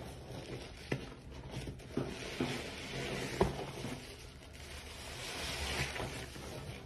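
A soap-soaked sponge squeezed and worked by gloved hands in a sink of thick suds: wet squelching and sloshing of foam and soapy water that swells and fades, with three short sharp wet clicks, the last the loudest.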